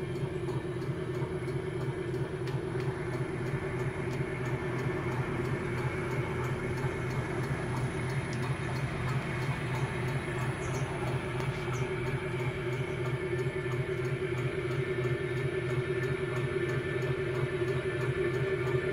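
Viceroy Sharpedge stone grinder running: its three-phase induction motor, fed from an inverter at 29 Hz so it turns well below its rated speed, drives the grinding stone with a steady hum and a fast, even rattle.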